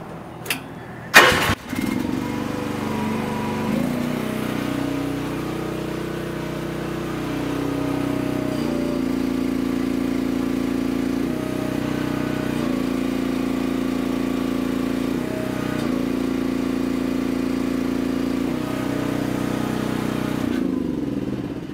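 Mini excavator engine starting about a second in and then running steadily. Its note steps down and back up several times as the hydraulics are worked to spin the newly fitted auger, and it drops away near the end.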